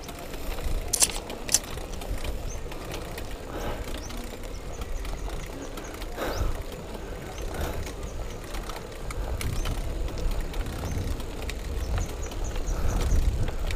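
Wind rumbling on the microphone of a cyclist riding a road bike, growing stronger near the end. Two sharp clicks come about a second in, and there are a few faint chirps near the end.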